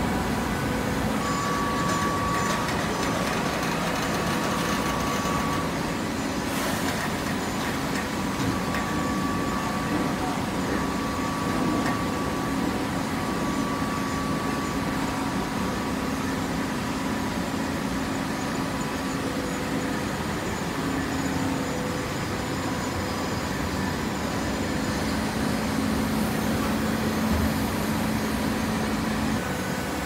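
Horizontal hydraulic baler running, a steady machine hum from its motor and hydraulic pump, with a few faint steady tones over the noise.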